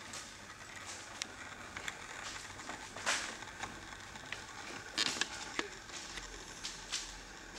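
Shoes scuffing and creaking on a wooden floor as a martial artist steps and shifts his feet, with scattered light clicks and two louder scuffs about three and five seconds in.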